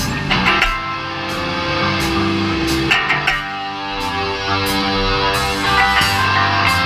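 Live rock band playing: electric guitar over bass, with cymbal strokes keeping a steady beat.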